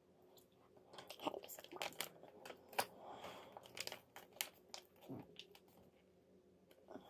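Packaging crinkling and crackling as it is handled: a run of sharp crackles from about a second in until about five seconds in.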